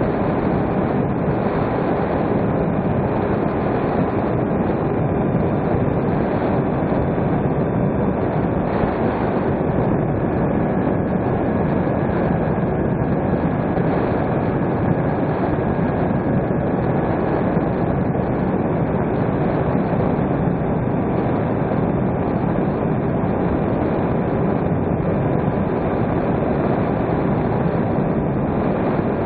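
Steady rush of wind and propeller noise from an electric RC plane in cruising flight, heard on board, with a faint steady motor whine.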